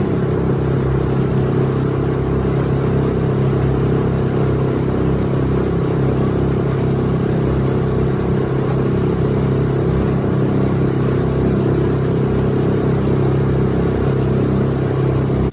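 A Suzuki DF6A 6 hp single-cylinder four-stroke outboard running steadily under way at part throttle, held back for its first break-in run.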